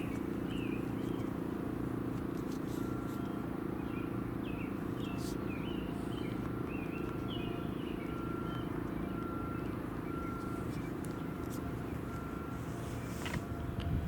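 Federal Signal STH-10 outdoor warning siren sounding a steady tone, with birds chirping. A short high beep repeats a little more than once a second from about three seconds in, and a sharp knock comes near the end.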